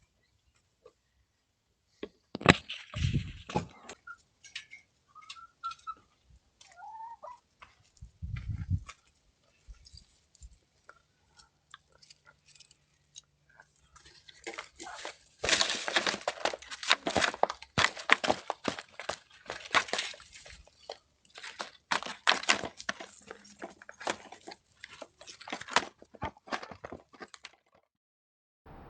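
Irregular crunching and clicking, sparse at first and dense through the second half, with a couple of short pitched sounds and a dull thump early on, as picked up by a doorbell camera's microphone.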